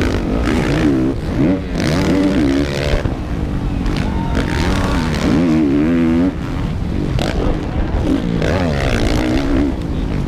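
Honda CRF450R four-stroke motocross bike engine at full race pace, heard up close on board, its pitch climbing and dropping repeatedly as the throttle is worked, with wind and chassis rattle underneath.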